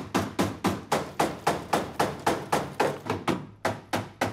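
Hammer blows on a chisel, cutting the rusted sheet-steel floor pan of a Citroën 2CV away where it joins the body. The strikes are steady and sharp, about four a second, with a brief pause a little past three seconds in.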